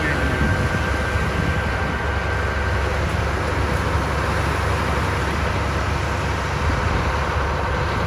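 Caterpillar D7H bulldozer's diesel engine running steadily as a low rumble, with a thin high tone that fades out about three seconds in.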